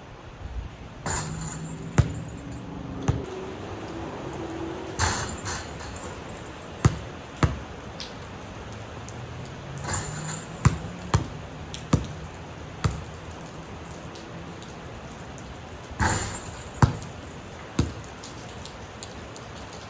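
Basketball bouncing on pavement during shooting practice: sharp single bounces at uneven intervals, with a few louder, longer hits.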